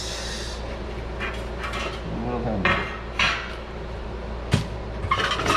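Light metallic clinking and rustling of small hardware and parts being handled, with one sharp click about four and a half seconds in.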